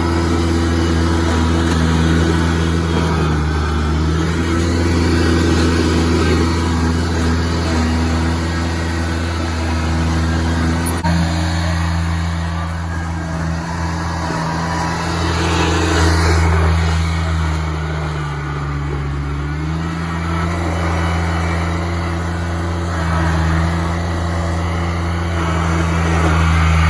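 Zero-turn mower's engine running steadily as the mower spins donuts on packed snow, its pitch dipping briefly twice.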